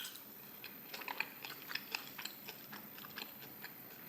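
A person chewing a mouthful of stir-fried spicy pork with kimchi: a quick irregular run of small wet clicks and crackles, starting about half a second in.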